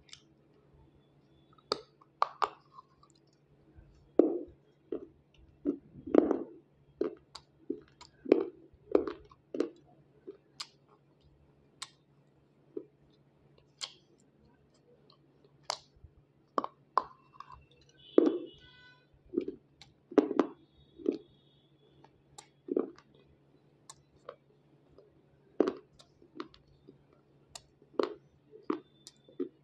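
A white unshaped slate pencil being bitten and chewed close to the microphone: sharp, dry cracks and crunches at irregular intervals, a few every couple of seconds.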